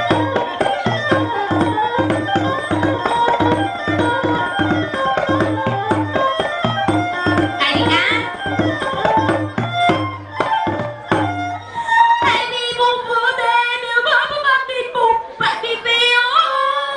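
Khmer dance music with a steady drum beat and melody instruments. The drum drops out about eleven seconds in, and a woman's voice sings into a microphone over the melody near the end.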